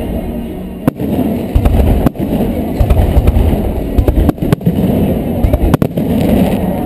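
Aerial firework shells bursting overhead: a rapid, uneven string of deep booms, broken by several sharp cracks.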